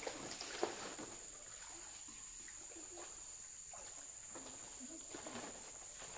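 Steady high-pitched insect drone of a tropical forest, with scattered faint rustles and clicks and one sharp tick about half a second in.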